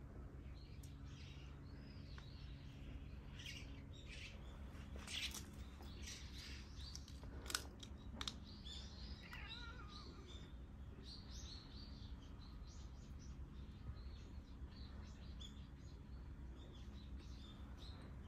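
Small birds chirping and tweeting over and over in short high calls above a faint low hum, with one sharp click about halfway through.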